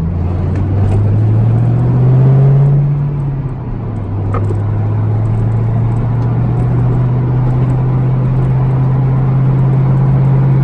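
Supercharged Ford Mustang engine driving under way, its pitch rising for about two seconds, dropping a little before four seconds in, then holding steady. It runs without cutting out under load, with the intake piping unbolted from the mass airflow sensor.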